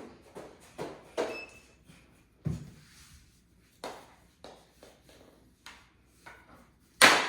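Knee hockey play: irregular clacks and knocks of mini hockey sticks and a ball, with a deeper thump about two and a half seconds in and the loudest crack near the end.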